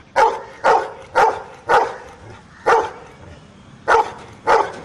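Golden retriever barking seven times, short single barks about half a second apart with two longer pauses. The dog is counting out its answer to a sum by barking.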